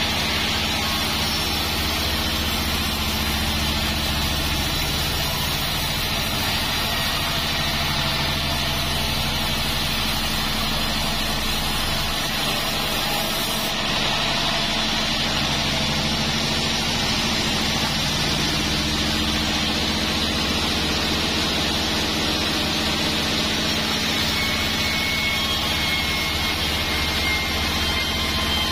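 A band sawmill runs steadily while its blade rips lengthwise through a joar wood log, cutting it into beams.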